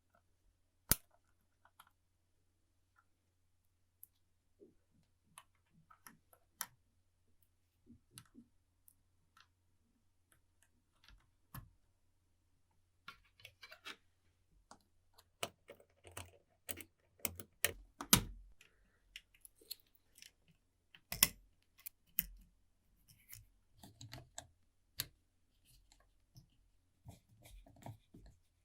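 Small clicks and light knocks of hand tools and small metal parts being handled on a workbench while an old alarm clock is worked on. The clicks are sparse at first and come thick and fast about halfway through, with a few louder knocks.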